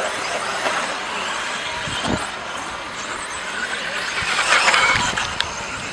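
Electric 4WD RC buggies racing on a dirt track, motors whining and rising and falling in pitch, with a couple of low thumps.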